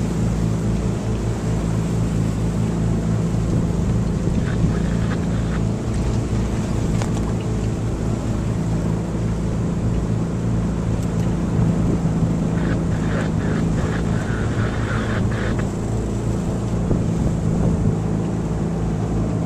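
A sailboat's auxiliary engine running steadily under power, with wind on the microphone and water splashing in choppy seas.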